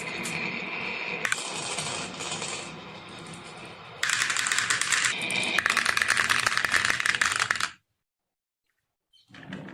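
Marbles rolling and clattering down a wooden marble run in a rapid, dense rattle of clicks, louder in two stretches. It cuts off suddenly near the end.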